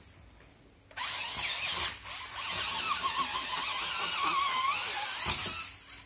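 Small electric motor and gearbox of a toy RC rock crawler whining under throttle. The whine starts suddenly about a second in, wavers up and down in pitch, dips briefly, and stops near the end.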